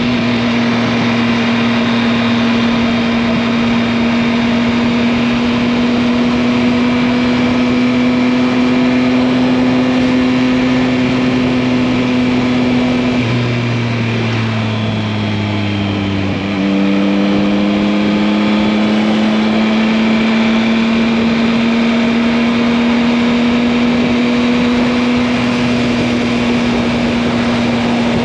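2021 Yamaha MT-09's 890 cc inline three-cylinder engine running steadily under way, its note slowly climbing. About halfway the revs fall for a few seconds, then the note jumps back up abruptly and holds steady again.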